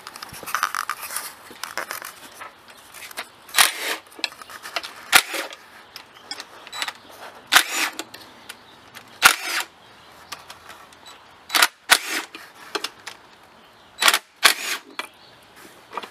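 Tools working the valve cover bolts off a 3800 supercharged V6, one bolt after another: about six short, sharp metallic clicks or bursts, a second or two apart.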